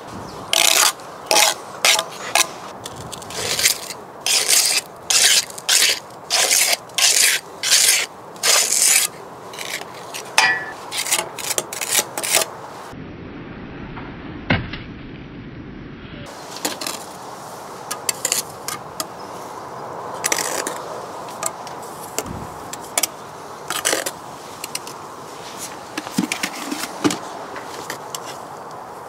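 Steel trowel and mortar scraping on brickwork: a regular run of short scraping strokes about two a second, then sparser scrapes and light taps as mortar is pressed into the joints around the replacement bricks.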